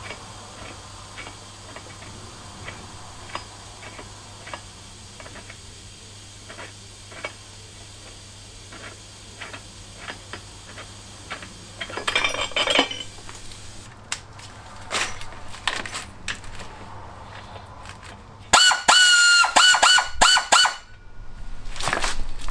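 Light, irregular metallic clicks as the engine-stand mounting bolts are worked by hand, with a short scrape about 12 s in. From about 18 s a hose-fed pneumatic tool runs in several short, loud, whining bursts, the loudest sound here.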